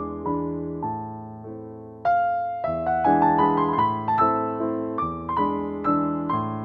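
Background piano music: soft notes, then a louder run of notes from about two seconds in.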